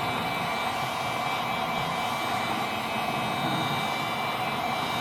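Heat gun blowing hot air, a steady rushing whir with a thin high whine running through it.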